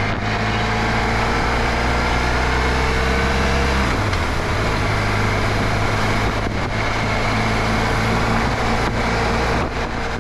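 Motorcycle engine running under way, its note rising slowly and then changing about four seconds in, over steady wind and road noise.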